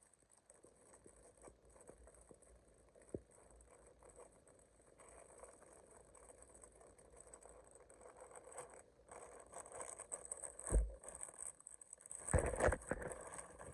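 Faint handling noise: irregular rustling and small clicks that grow louder toward the end, with a sharp click about three seconds in and heavier thumps around eleven and twelve and a half seconds.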